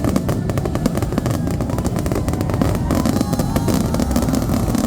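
Aerial fireworks going off in a dense, continuous barrage of rapid bangs and crackles, with a few faint whistles among them.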